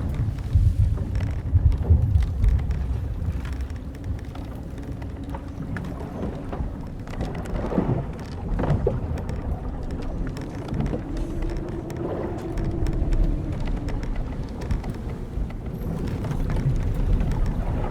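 Wooden sailing ship creaking as it rolls: timbers and ropes give short creaks and one long, drawn-out creak that rises and falls in pitch about halfway through. Underneath is a low rumble of wind and sea, heaviest in the first few seconds.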